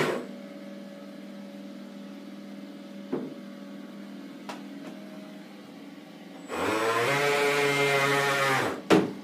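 Homemade radio-controlled bait boat's electric drive motors running in a bathtub, a steady pitched whine that comes in about six and a half seconds in, holds for about two seconds and cuts off, followed by a sharp knock. Before it, only a low steady hum with a couple of faint clicks.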